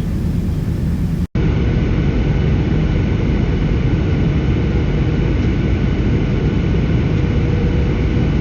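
Steady, loud noise of an airliner in flight: engine and airflow noise, heaviest in the low end, with faint steady tones above. It cuts out for an instant about a second in, then resumes unchanged.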